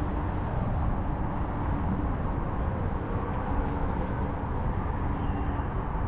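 Steady outdoor street ambience with a low rumble of road traffic.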